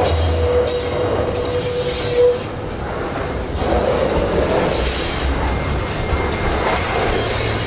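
Container wagons of an intermodal freight train rolling past close by, a steady rumble of wheels on rail. A steady squealing tone from the wheels stops about two seconds in.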